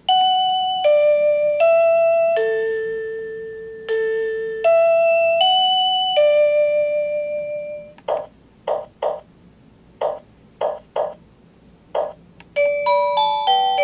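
Plug-in wireless doorbell receiver playing its electronic chime tunes one after another: a slow melody of ringing bell-like notes that each fade away, then a string of short beeps about two a second, then a quicker tune starting near the end.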